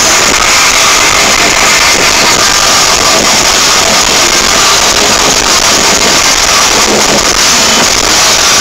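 Metal band playing live at full volume, a dense wall of distorted guitars and drums heard from the crowd. The recording is overloaded and distorting throughout.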